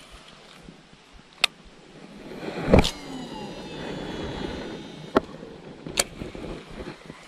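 A cast with a baitcasting rod and reel: a sudden loud burst about three seconds in, then the reel's spool whining with a slightly falling pitch for about two seconds as line pays out. Sharp single clicks from the reel come before and after the cast, the last as the handle is turned.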